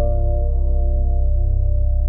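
Ambient drone music: a deep, slowly swelling drone under sustained singing-bowl tones that ring out and fade slowly.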